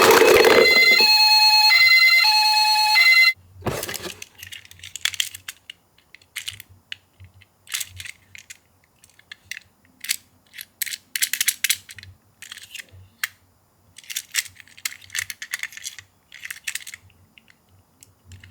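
A toy ambulance's electronic siren sound plays in stepped alternating tones and cuts off suddenly about three seconds in. Scattered light clicks and rattles of small plastic parts follow.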